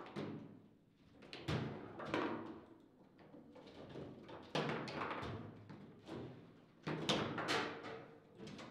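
Table football play: the ball cracks against the plastic player figures and the table walls, and the rods clack and thud. It comes in several flurries of rapid knocks.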